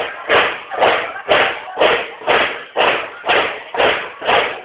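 Marching drums of a banda de guerra beating a steady march cadence, about two strokes a second, each hit with a snare rattle.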